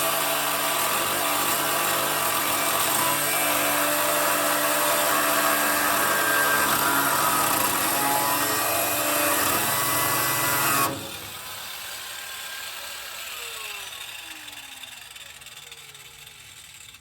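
Warrior angle grinder with a cut-off wheel running under load, cutting metal, with a steady whine. About 11 seconds in it is switched off and the whine falls away as the wheel spins down.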